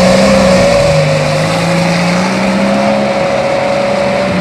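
Suzuki Jimny engine held at high revs under load as the 4x4 pushes through tall brush. The pitch sags about a second in, climbs back, and falls off near the end.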